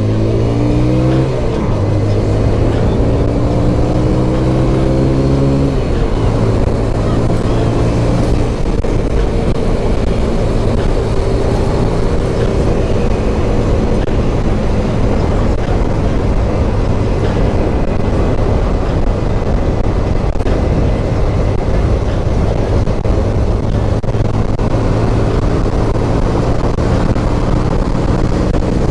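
Honda CBR125R's single-cylinder four-stroke engine accelerating through the gears: the revs climb for about a second, drop at an upshift, climb again for about four more seconds, drop at a second upshift, then hold a steady note at cruising speed.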